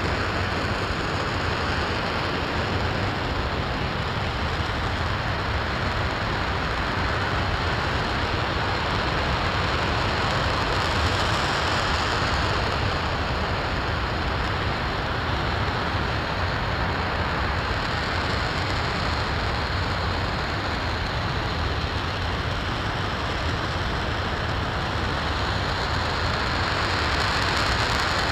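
RS-25 liquid-hydrogen/liquid-oxygen rocket engine firing steadily on a test stand during a long-duration hot-fire: an even, unbroken rush of noise with a deep rumble underneath.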